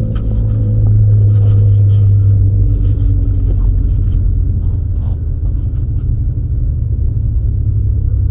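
Porsche 911's flat-six engine running steadily at low revs as the car rolls slowly, heard from inside the cabin as a deep drone with a few faint clicks and rattles.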